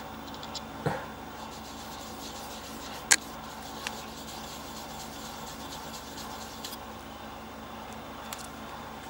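Steady low room hum with a few light knocks of the engraving work being handled, the sharpest a single click about three seconds in.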